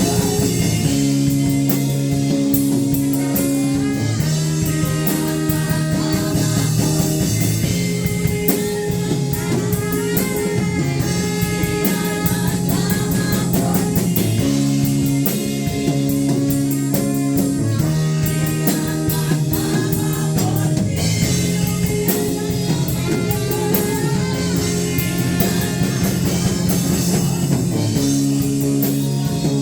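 Praise-and-worship band music: guitar chords over a steady drum-kit beat, the chords changing every couple of seconds in a repeating progression.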